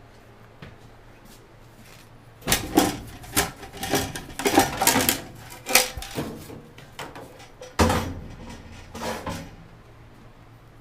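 A run of irregular knocks and rattles, starting about two and a half seconds in and dying away near the end.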